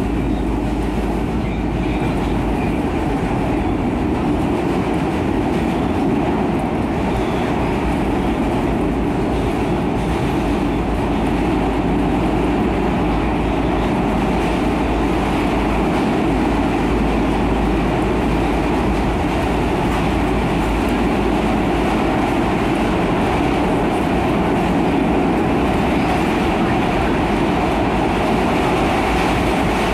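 SEPTA Broad Street Line subway train running at a steady speed through the tunnel, heard from inside the car. Its wheels on the rails make a steady, loud rumble.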